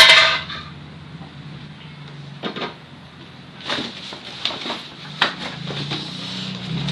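Knocks, clatter and rustling from handling the parts and packaging of an indoor stationary bike during unboxing. The loudest is a sharp clatter at the very start, followed by scattered lighter knocks.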